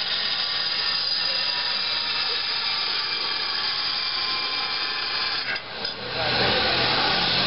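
Steady mechanical noise with faint whining tones, growing louder with a low rumble about six seconds in.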